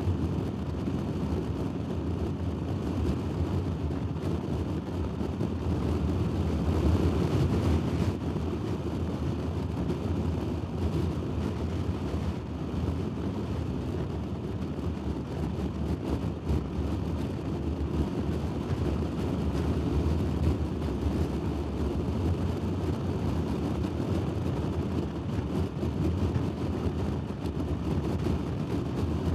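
Honda Forza scooter under way: a steady low rush of wind on the microphone mixed with engine and road noise, briefly louder about seven seconds in.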